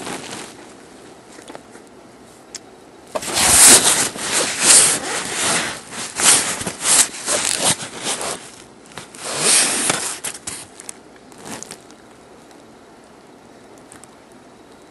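Rustling and scraping handling noises in a run of irregular bursts, loudest from about three to eleven seconds in.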